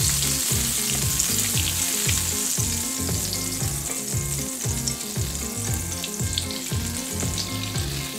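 Butter melting in olive oil and sizzling steadily in a stainless steel skillet as a silicone spatula pushes it around. A low background music beat runs underneath.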